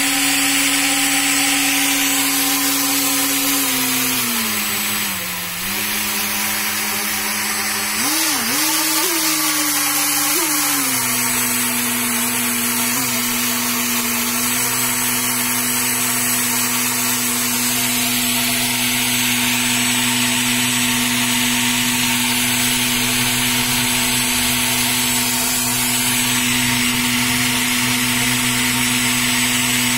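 Brushless motor running off a Hobbywing Skywalker 40A ESC fed through a brushed-to-brushless converter, with a steady pitched motor tone. The pitch drops around four to five seconds in, wavers up and down several times between about eight and eleven seconds as the throttle is moved, then holds steady.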